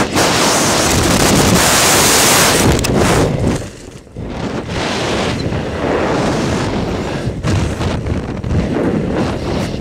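Strong wind rushing over a helmet camera's microphone in freefall. It drops off sharply about four seconds in as the parachute opens, then goes on as lighter, gusty wind under the canopy.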